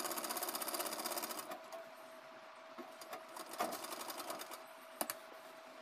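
Marvy straight-stitch sewing machine running in a fast, even rattle of stitches, slowing and stopping about a second and a half in. A few light clicks follow, with a sharper one near the end.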